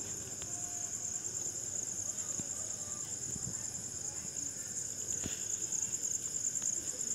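A steady high-pitched trill with a few faint clicks.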